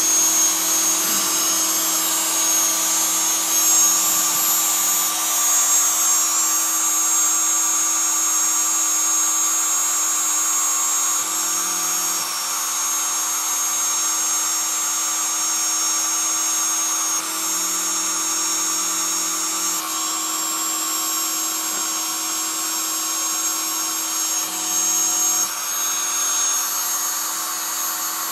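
CNC router spindle running steadily with a high whine while its 2 mm three-flute end mill cuts shallow lettering into a wooden board.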